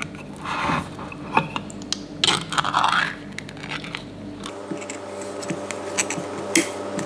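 Ring-pull lid of a tin can of baked beans torn open in two scraping pulls, then softer scrapes and taps of a spoon stirring the beans inside the tin.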